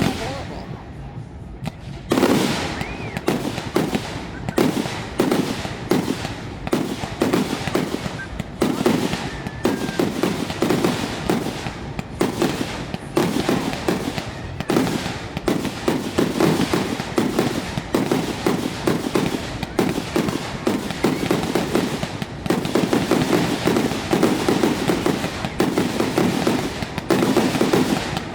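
Aerial fireworks display: shells bursting in quick succession. The bangs start about two seconds in and then come almost without a pause, overlapping one another.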